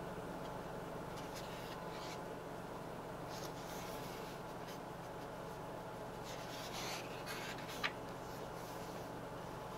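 Pages of a stone-paper sketchbook being turned and smoothed by hands in cotton gloves: several soft swishing rubs, with one sharp click about eight seconds in, over a steady low hum.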